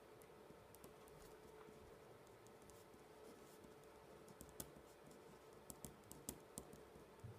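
Faint pen writing on paper on a desk: light scratching with small ticks as the nib touches down, a few sharper ticks in the second half.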